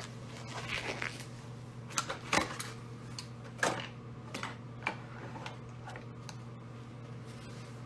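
Steady low hum with a scatter of light clicks and rustles through the first five seconds or so, after which only the hum remains.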